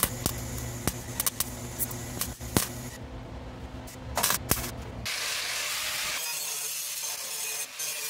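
Welding on sheet-steel body panels: sputtering crackles in short bursts over a steady low hum. About five seconds in it gives way to an angle grinder grinding down the welds, a steady bright hiss.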